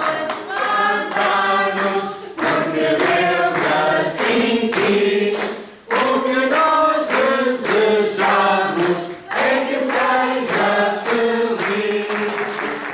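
A group of people singing together, with hands clapping along; the singing breaks off briefly about halfway through, then goes on.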